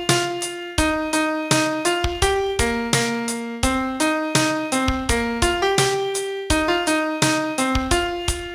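Piano playing a song's vocal melody as a single line of notes, one struck note after another, each fading until the next.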